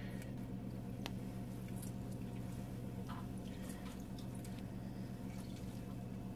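Steady low electrical hum, with faint soft squishes and small clicks as a cut lemon half is handled over the counter.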